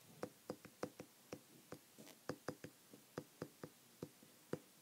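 Faint, irregular tapping and clicking of a stylus on an iPad's glass screen as words are handwritten, about four small clicks a second.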